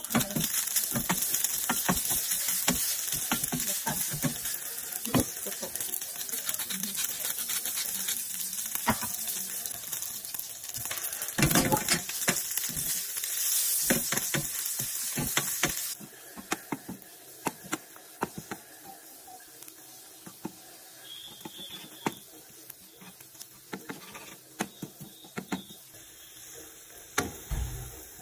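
Diced meat frying in hot fat in a non-stick frying pan, with loud sizzling and crackling, stirred with a wooden spatula. About halfway through the sizzle drops off suddenly to a quieter crackle with scattered clicks and scrapes of the spatula on the pan.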